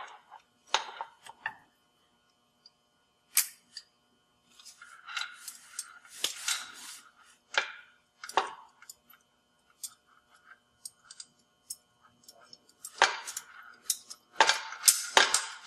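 Scattered small metal clicks, clinks and rattles of a track tensioner being adjusted by hand: its small retaining pin pulled and the tensioner pin moved to another hole. The clatter is busiest around the middle and again near the end.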